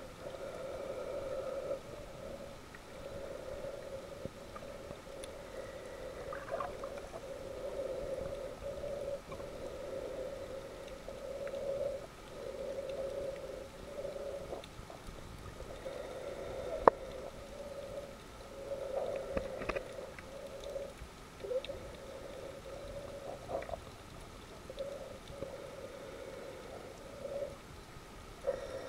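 Muffled sound of a camera recording underwater: a wavering hum that swells and fades every second or two, with a few faint clicks and one sharp click about 17 seconds in.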